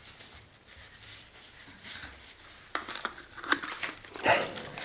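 Tissue paper soaked in isopropyl alcohol wiping old grease out of a bicycle frame's threaded bottom-bracket shell: soft paper rustling, then a few short scrapes and crinkles in the second half.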